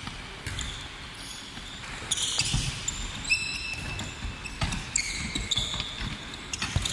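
Handballs bouncing on a wooden sports-hall floor, with scattered knocks and short high squeaks of sneakers as players dribble and shuffle in a defensive drill.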